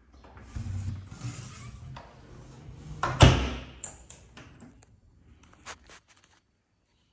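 Rustling movement noise, one loud thud about three seconds in, then several light clicks and taps.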